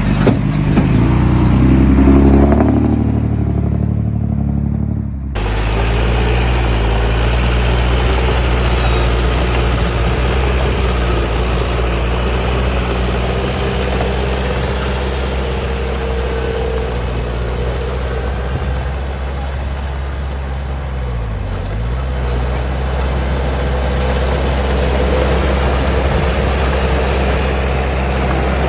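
Heavy diesel engine of earthmoving machinery running steadily, with a constant broad noise joining about five seconds in and a brief dip in engine speed about three quarters of the way through.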